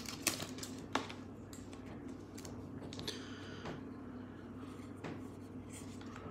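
Glossy trading cards being flipped through by hand: faint scattered clicks as card edges snap past each other, with a short rustling slide about three seconds in.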